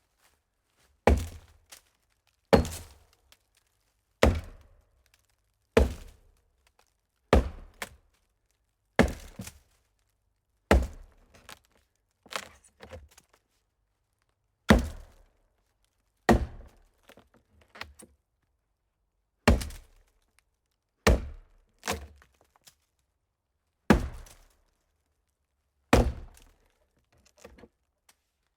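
Chopping blows into a hollow tree, a hollow thunk about every one and a half to two seconds, each dying away quickly, some followed by a lighter second knock.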